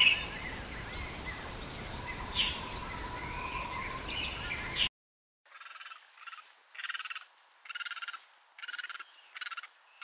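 Outdoor ambience of steady hiss with faint, scattered bird chirps. About five seconds in it cuts off and, after a brief gap, gives way to a run of about eight short, raspy animal calls, each under half a second, at an even pace.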